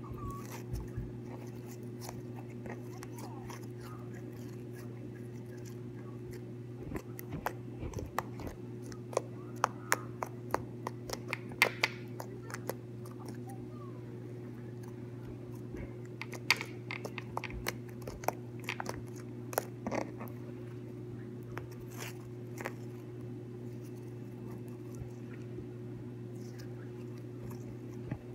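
Fluffy slime being squished, poked and stretched by fingers, giving irregular sticky pops and crackles that come thickest in two stretches in the middle. A steady low hum runs underneath.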